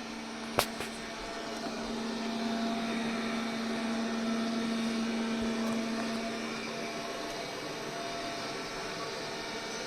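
MOVA robot vacuum cleaner running, a steady motor hum with a held tone that grows louder for a few seconds in the middle, as if passing close by. A single sharp click comes about half a second in.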